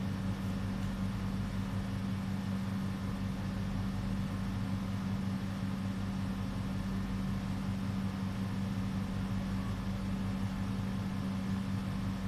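A steady low electrical or motor hum, even and unchanging throughout.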